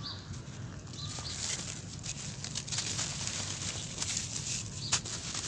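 Dry sand-cement chunks crunching and crumbling in bare hands, with grit and dust pattering down onto loose sand; a sharper crunch near the end.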